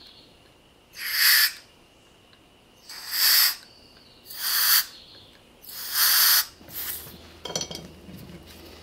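Four short bursts of canned compressed air hissing through a red straw into the jet passages of a Nikki carburetor's plastic jet holder, each about half a second long and roughly a second and a half apart, with a weaker fifth puff after them. Near the end come a few small clicks.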